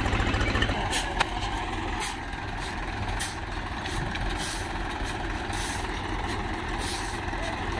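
A Swaraj tractor's diesel engine idles close by with an even low pulse. It drops back within the first second to a steadier background engine hum, over which a shovel scrapes into sand in short strokes about once a second.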